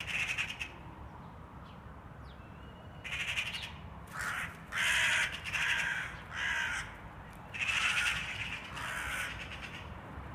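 Crows cawing: about eight harsh caws, one at the start and then a run of them from about three seconds in.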